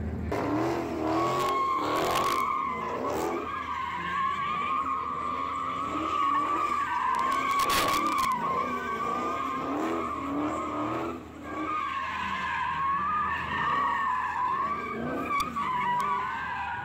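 Car tyres squealing continuously as a car drifts, with the engine revving underneath. The squeal wavers around one pitch and breaks off briefly about eleven seconds in.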